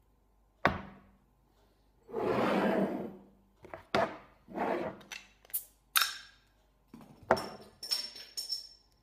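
A hockey stick and a glass beer bottle handled on a wooden tabletop: a sharp knock under a second in, about a second of rasping slide, then a run of short knocks and clinks, the last few with a ringing glassy clink near the end.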